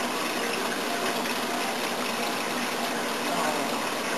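Steady rushing and splashing of water circulating through a saltwater reef aquarium, with the hum of its pump underneath.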